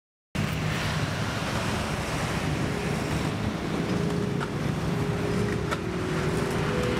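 Wind buffeting the camera microphone in a steady rush of noise, cutting in sharply after a moment of silence, with a couple of faint clicks midway.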